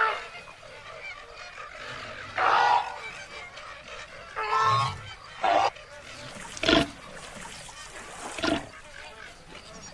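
Short animal cries and grunts from cartoon animals, about six separate calls each lasting well under a second, with pauses between.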